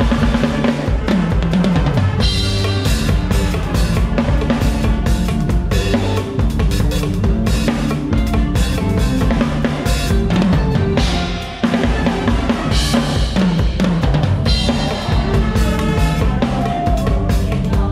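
Drum kit played with a live band in a long medley: bass drum, snare and cymbals up front over electric bass and keyboards. The band drops away for a split second about eleven and a half seconds in, then comes straight back in.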